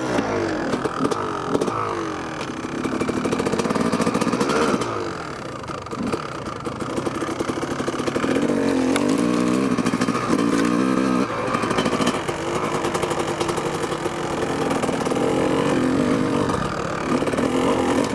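Kawasaki KX250 dirt bike engine running under way, its pitch rising and falling as the throttle is worked through the gears.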